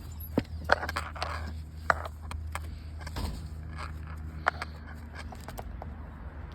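Irregular scraping with sharp clicks and snaps as weeds are pulled and scraped out from between deck boards, over a steady low hum.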